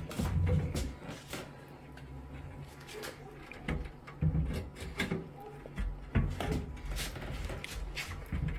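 Heavy fireplace door being handled and set into the fireplace opening: a series of irregular knocks and clunks, with a few duller thuds.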